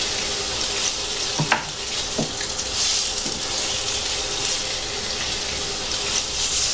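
Food sizzling in a frying pan on the stove, a steady hiss, with a couple of short knocks of a spatula against the pan about one and a half and two seconds in.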